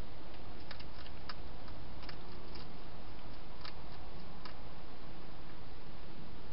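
Wild hedgehog eating at a dish: a scattered run of small, sharp chewing clicks, stopping about four and a half seconds in, over a steady hiss.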